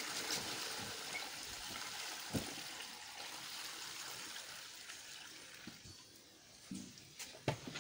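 Catfish eggs trickling from a hand-stripped female into a plastic bowl of eggs: a soft, wet hiss that fades away over about six seconds. A few light knocks come from handling the fish and bowl.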